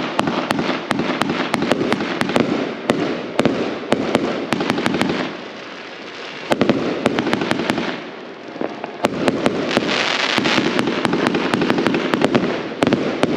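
Fireworks going off: a dense run of sharp bangs and crackling, many reports a second over a continuous hiss, easing briefly about six and eight seconds in.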